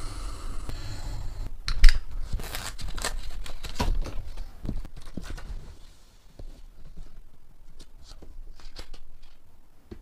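Paper being handled: cutouts and notebook pages rustling and crinkling, with a loud sharp tap about two seconds in and many small clicks and scrapes. It grows quieter and sparser in the second half.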